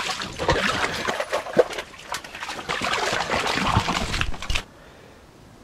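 A hooked brook trout splashing and thrashing in the water of an ice-fishing hole. It cuts off suddenly about four and a half seconds in, leaving a faint hiss.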